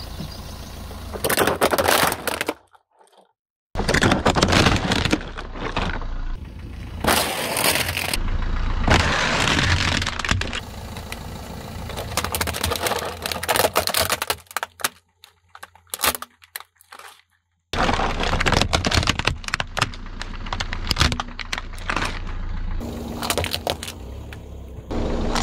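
Car tyre rolling over a plastic toy dump truck and crushing it: repeated loud cracking and snapping of hard plastic, with the sound cutting off suddenly twice. Near the end a small clear plastic pack cracks under the tyre.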